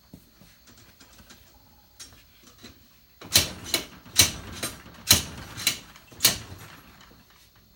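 Sharp mechanical clacks and knocks: faint scattered clicks, then about half a dozen loud clacks in quick succession in the middle, from something being worked by hand.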